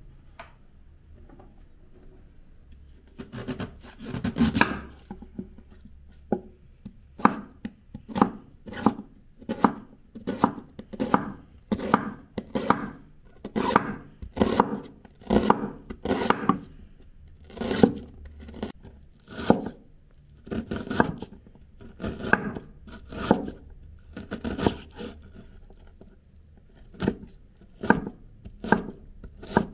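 Large kitchen knife cutting a peeled white onion on a round wooden cutting board, each cut ending in a knock of the blade on the wood. The cuts come evenly, a little more than one a second, starting about three seconds in after a quiet start.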